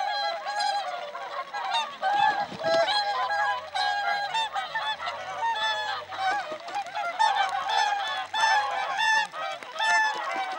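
A flock of whooper swans calling, many short bugling calls overlapping in a continuous chorus.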